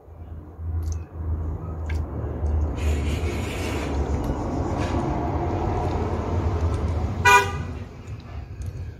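Street traffic: a motor vehicle's low engine rumble rising and holding for several seconds, with one short car horn toot about seven seconds in.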